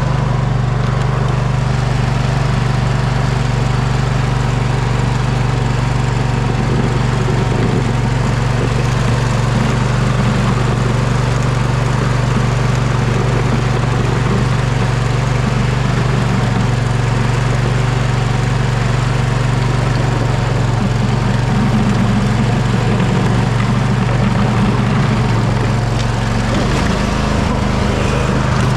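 Poulan riding mower engine running steadily under load as the tractor pushes snow with its front plow blade. The note dips slightly about halfway through.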